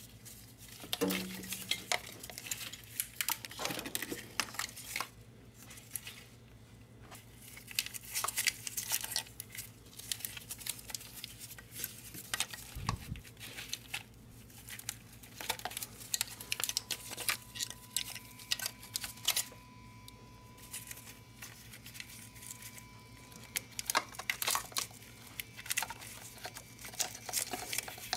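Irregular rustling, scraping and light clicks of a plastic-looped wiring harness being pushed and pulled through by gloved hands against the transmission.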